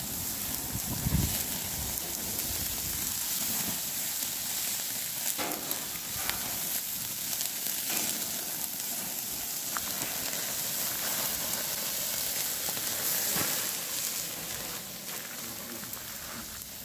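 Sausages sizzling in a wire grill basket over glowing embers: a steady hiss with a few faint crackles.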